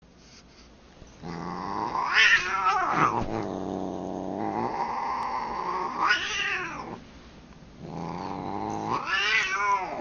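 Siamese cat growling in two long spells, each swelling into rising yowls, while play-fighting a dog. The first starts about a second in and runs to about two-thirds through; the second starts just before the end and carries on past it.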